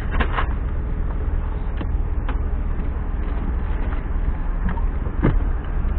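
Steady low rumble of a running vehicle, with a few short clicks and knocks over it.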